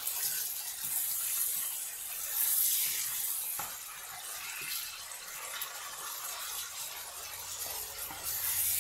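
Mutton pieces with ginger-garlic paste sizzling in oil and their own released juices in a nonstick frying pan, a steady hiss that swells a few times as the meat is stirred. A few light spatula scrapes against the pan.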